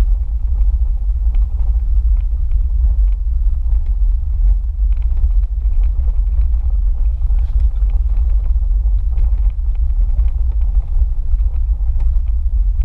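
A vehicle driving slowly along a wet, muddy dirt trail, picked up by a camera on its hood: a steady low rumble with scattered light ticks.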